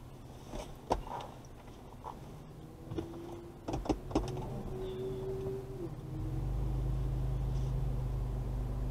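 A few clicks, then a small electric motor hums steadily for about three seconds. About six seconds in, a car's low steady rumble starts as it pulls forward and runs on.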